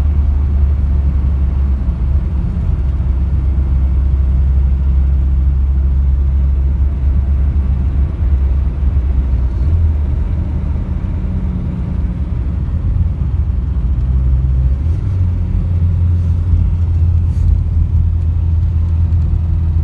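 Turbocharged Opel C20NE 2.0-litre four-cylinder engine running with a steady low rumble, its pitch shifting a couple of times, about halfway through and again a few seconds later.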